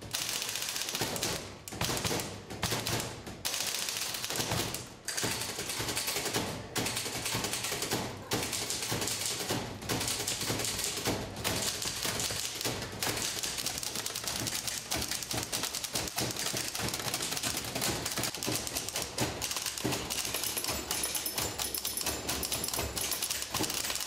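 Several manual typewriters typed together as an ensemble: a dense, rapid clatter of keys and typebars. Short pauses break it in the first half, and from about halfway it runs without a break.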